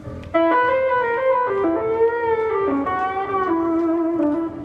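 Jazz-fusion band and orchestra playing live: a single lead line comes in suddenly about a third of a second in and works its way downward note by note, with bent and wavering notes.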